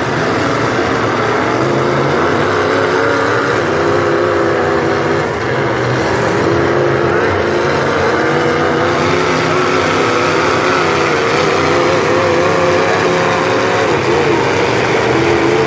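Demolition derby car engines running loud and revving, their pitch wavering up and down as the cars push against each other in the mud.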